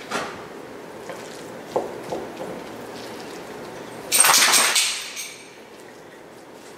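A spatula stirring a thick cheese and crab filling in a bowl, knocking lightly against the bowl a few times. About four seconds in there is one loud scrape lasting about a second.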